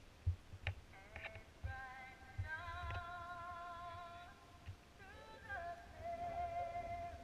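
A woman singing long, high held notes with a wavering pitch, starting about a second in and gliding down to a lower note after about five seconds, with irregular low thumps underneath.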